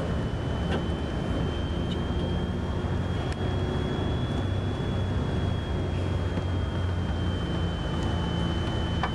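Steady engine and road rumble heard from inside a moving tour bus, with a thin high whine running over it.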